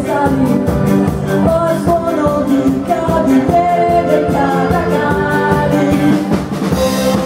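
Live band playing a ska-tempo cover: a singer's voice over electric bass, keyboards and a drum kit keeping a quick, even beat.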